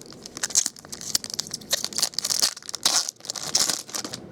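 Crinkling and tearing of a foil trading-card pack wrapper, with a rapid crackle of many small clicks, as cards are handled.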